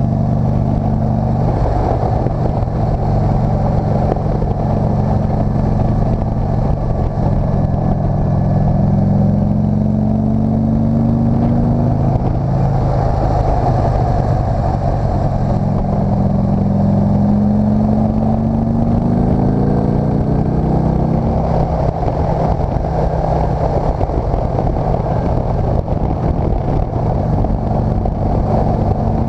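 Motorcycle engine running under way on a winding climb, its pitch rising in long sweeps as it accelerates, twice (about halfway through and again about two-thirds through), with steady wind noise over it.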